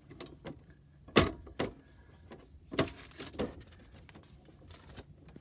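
A few sharp clicks and knocks from the car's centre console lid being unlatched and lifted, the loudest about a second in, with smaller knocks around three seconds in.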